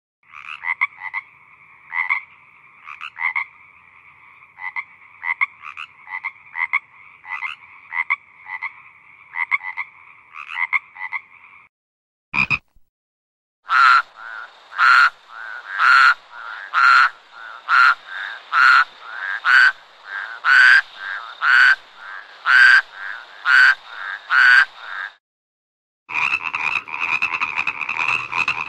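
Frogs croaking in several spliced recordings. First comes a run of repeated croaks, then after a short click a louder series of single croaks about once a second. Near the end a dense, unbroken chorus of many frogs.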